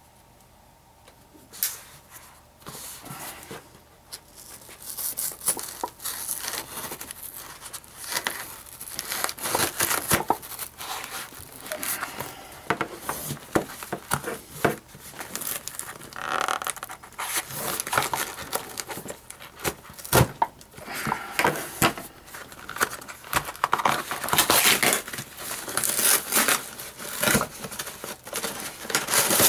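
A cardboard Priority Mail flat rate box being cut open with a folding knife and torn apart by hand: scraping, ripping cardboard and tape, and many sharp handling clicks. It starts about two seconds in.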